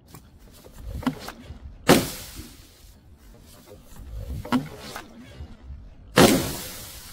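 Large liquid-filled balloon handled on a wooden ramp: rubbing and rustling, with a sharp slap about two seconds in. Near the end comes a heavy thud, the loudest sound, as the balloon hits the ground.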